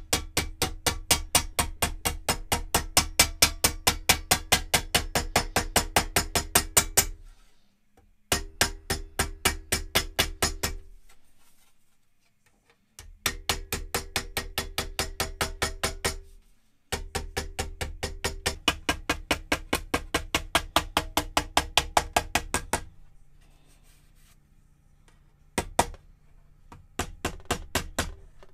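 A soft-faced mallet taps quickly and evenly on the aluminium flange of an aircraft nose rib held between form blocks in a vise, about five blows a second. The blows come in runs of several seconds with short pauses between, and a few scattered taps near the end. This is the flange being hand-formed over the form blocks.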